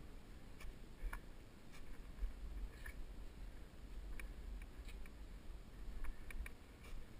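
Faint, irregular crunching clicks of footsteps on a snow ridge, over a steady low wind rumble on the camera's microphone.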